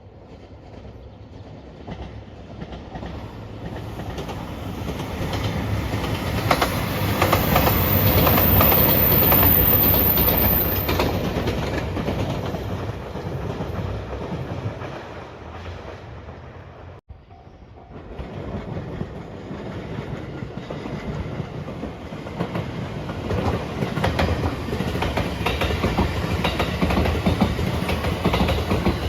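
JR Shikoku 2700 series diesel express trains passing close by, wheels clattering over the rail joints. The first pass swells to a loud peak and then fades before cutting off suddenly. A second pass then builds up and runs loud to the end.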